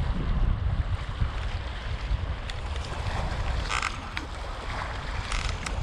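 Wind buffeting the microphone, heard as an uneven low rumble, with a brief higher sound about four seconds in.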